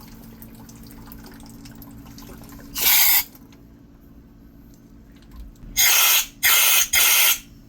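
Four short hissing blasts of compressed air from a compressor's air chuck pushed into an electric water heater's drain: one about three seconds in, then three in quick succession near the end. The air is blown back into the drain to push clogged sediment away from it. Water runs quietly from the drain between the blasts.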